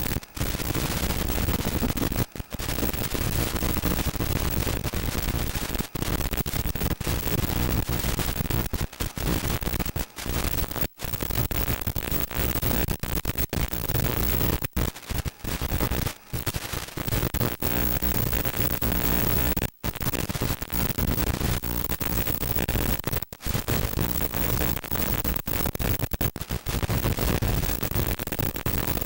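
Loud static hiss from an analog 5.8 GHz FPV video receiver's audio output, cut by brief dropouts every few seconds. It is the sound of a weak, breaking-up video link.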